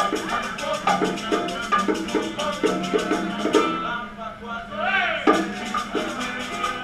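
Live Puerto Rican parranda music: hand percussion with a steady shaker beat over pitched instruments and voices. About four seconds in the shaker drops out briefly under a rising-and-falling note, and the full band comes back in on a hit.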